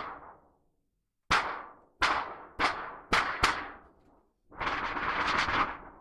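A large thin sheet of metal, used as a homemade thunder sheet, is flexed and shaken by hand to make thunder. It gives five sharp cracks, each ringing away, spaced about half a second apart. Then comes a continuous rattling rumble that lasts about a second and a half.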